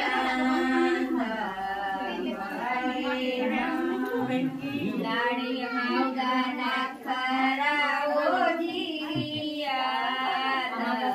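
A group of women singing together, several voices at once in one continuous melody.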